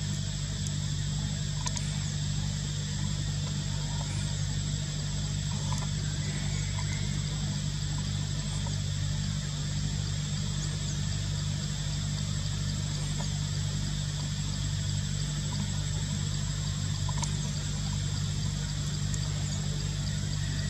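Steady outdoor background sound: a constant low hum under an even high-pitched drone, with a short high chirp repeating about every two seconds.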